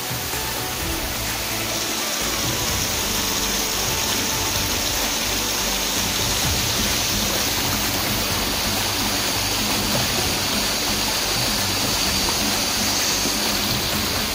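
Steady rush of a waterfall, with background music underneath.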